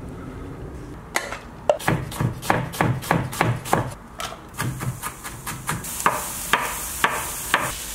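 Kitchen knife chopping vegetables on a wooden cutting board: a run of sharp knocks about three a second, with a short break midway. In the second half the sizzle of onions frying in a pan comes in under the chopping.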